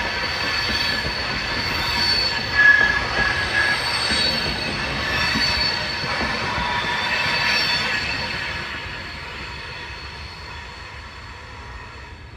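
Coaches of an Indian Railways express train rolling slowly through a junction, steel wheels squealing against the rails in several high, steady tones over a low rumble. After about eight seconds the sound fades steadily as the last coach passes and the train moves away.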